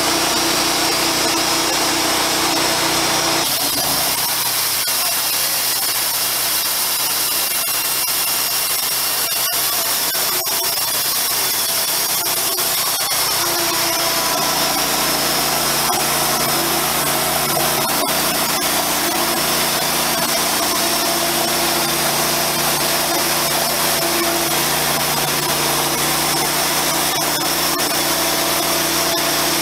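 Wood-Mizer portable bandsaw sawmill running, its engine driving the band blade through a log. The engine's note shifts about 4 s in and again about 14 s in, then holds steady through the cut.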